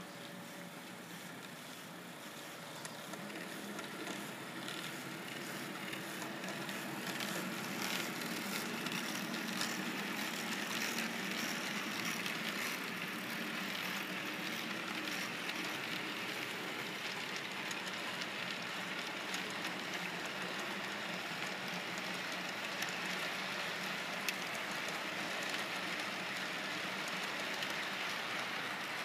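Model passenger train running on the layout's track, the wheels rolling on the rails with the motor running, growing louder over the first several seconds as it nears and then holding steady as the cars pass.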